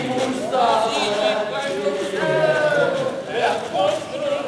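Singing voice with several notes held for about half a second, as in a sung number in a stage musical.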